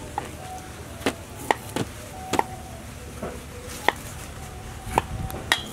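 Knife cutting peeled bamboo shoot on a round wooden chopping block: about seven sharp, separate knocks at uneven spacing, roughly a second apart.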